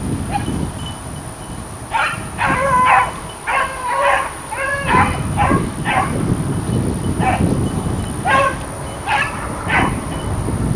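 Pack of beagles baying on a rabbit's trail, out of sight in the brush: a string of short, yelping bawls that starts about two seconds in and repeats, sometimes overlapping, to the end.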